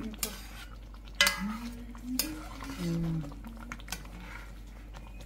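A metal utensil clinking and scraping against a cooking pot as pork is stirred in it, with several sharp clinks, the loudest about a second in.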